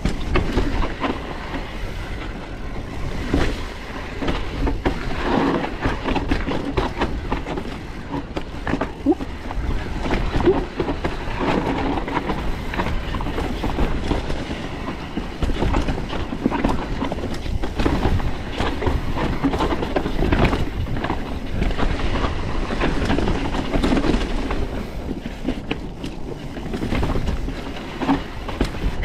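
Foes Mixer mountain bike clattering down a steep rocky trail: tyres rolling over rock with a constant rattle of knocks and clicks from the bike, and low rumble underneath.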